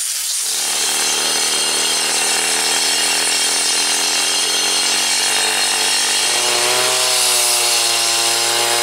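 Gas-powered cut-off saw cutting into the road's asphalt along a concrete curb: a steady engine note under the grinding hiss of the blade in the pavement. A pressure-washer spray hisses for a moment before the saw starts.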